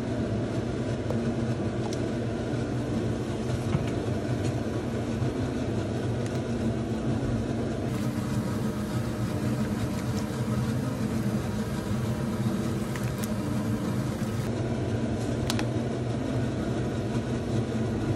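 Water at a rolling boil in a stainless steel pot on a gas stove: steady bubbling with a low rumble, and a few light clicks.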